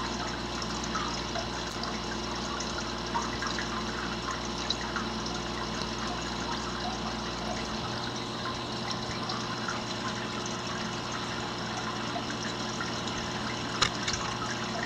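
Water trickling steadily in an aquarium, with a faint hum underneath and a few small clicks near the end.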